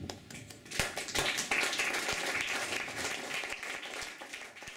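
Audience applauding: a dense patter of many hands clapping that swells about a second in and thins out near the end.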